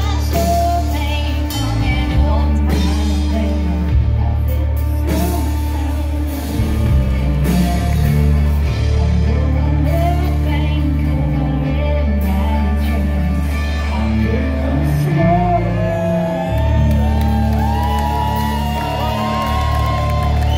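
Live country-rock band playing loudly in a hall, with a woman singing lead over an electric twelve-string guitar, drums and a steady bass line. The vocal melody comes forward more in the latter half.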